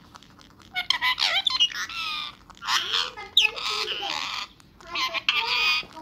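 Indian ringneck parakeet squawking and chattering in three bursts, the first starting about a second in.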